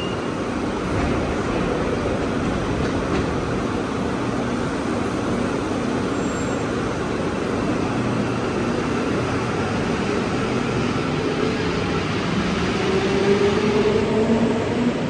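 Santiago Metro Line 1 rubber-tyred metro train running, a steady rush of noise, with a motor whine that rises in pitch near the end as the train speeds up.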